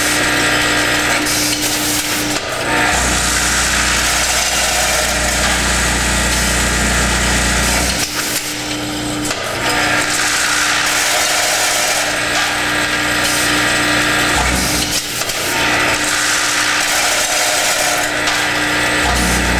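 Delta weigher bagging line running: a vibrating tray and feeder bowl rattling small metal parts along. Under the rattle, a steady hum breaks off about every six to seven seconds and a deeper drone comes and goes, in a repeating machine cycle.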